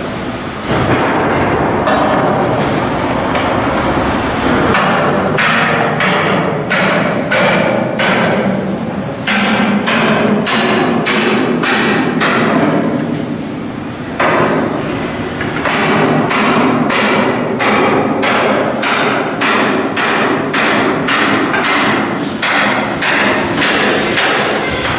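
Hammer striking steel in a steady rhythm, about two blows a second, over a noisy shipyard work background. It pauses briefly about halfway through, then carries on.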